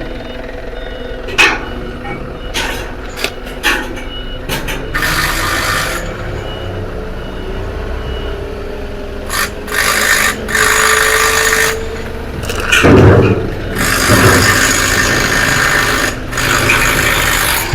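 Heavy machinery running with a steady low rumble, sharp metal clanks in the first few seconds, then several long, loud bursts of hissing noise.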